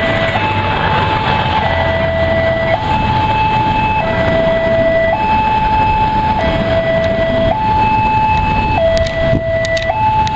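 Railway level-crossing warning alarm sounding two electronic tones that alternate high and low, each held a little over a second, over the low rumble of the Batara Kresna railbus passing close by. A few sharp clicks come near the end.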